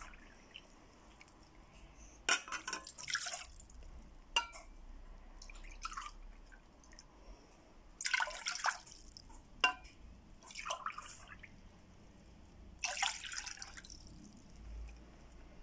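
Water poured from a glass cup into a stainless steel pot in three short splashing pours, with a few small knocks between them.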